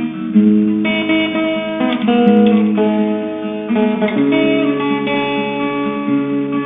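Acoustic guitar playing a progression of chords, a new chord about every second.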